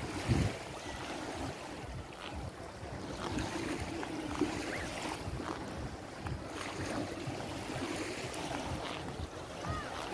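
Small Adriatic Sea waves washing and lapping on a sandy shore, with wind buffeting the microphone, strongest at the very start, and faint voices near the end.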